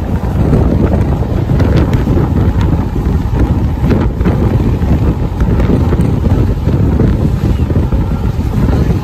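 Loud wind buffeting a microphone held out of a moving passenger train's window, over the steady rumble of the train running along the track.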